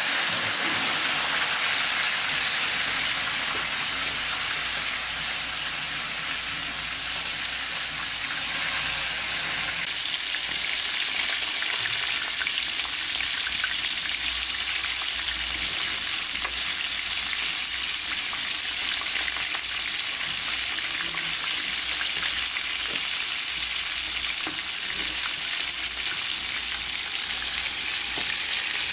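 Chicken deep-frying in hot oil: a loud, steady sizzle with fine crackling.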